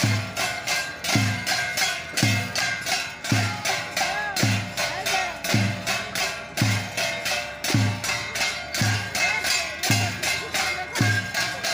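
Music for a Santali Dasai dance: a deep beat that drops in pitch, struck evenly about every two-thirds of a second, under a melodic line with sliding, voice-like notes and some metallic jingling.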